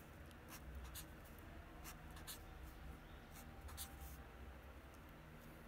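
Felt-tip marker faintly scratching on notebook paper in a series of short, quick strokes as small tick marks are drawn.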